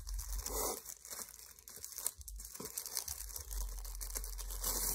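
Thin plastic packaging crinkling and rustling in the hands as it is pulled open, in irregular bursts, a little stronger just after the start and near the end.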